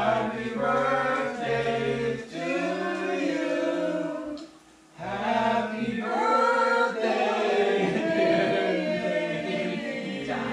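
A group of voices singing together in held notes. They break off briefly about halfway through, then carry on.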